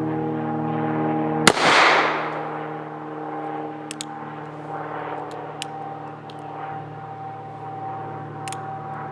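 A single shot from an antique Smith & Wesson New Model No. 3 revolver firing a black-powder .44 Russian cartridge: a sharp crack with an echo that trails off over about half a second. A few small metallic clicks follow as the gun is handled. Under it all runs a steady engine drone.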